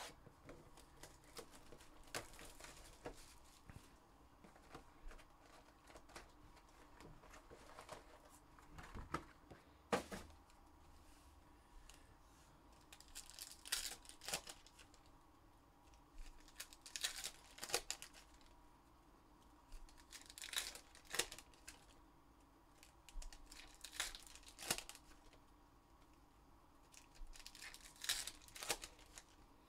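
Foil trading-card packs from a Goodwin Champions box being torn open and crinkled by hand, in short, sharp tearing and crinkling bursts every few seconds.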